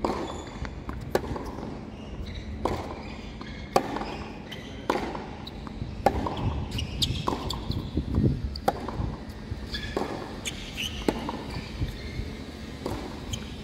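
Tennis rally on a hard court: tennis balls struck by rackets and bouncing, a sharp pop roughly every second or so.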